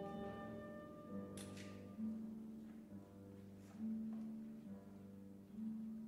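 Soft classical background music: slow, low sustained notes that change every second or two.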